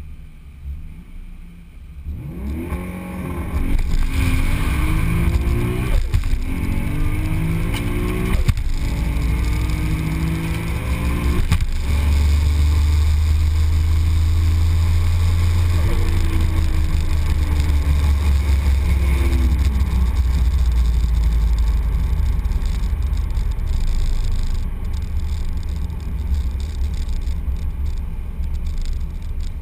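Single-turbo Toyota Supra heard from inside the cabin on a drag-strip pass: it launches about two seconds in, the engine note climbing in each gear with a short break at each of four quick upshifts. After that the car runs on hard with a heavy low rumble, then the note falls away as it lifts off and slows, leaving road and wind noise.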